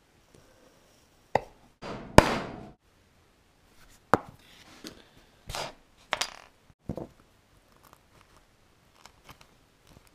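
Hand-tool work on a home-made copper cable lug being crimped with locking pliers on a bench: a handful of irregular sharp knocks and clacks, the loudest about two seconds in, with short scraping rasps after some of them and lighter ticks near the end.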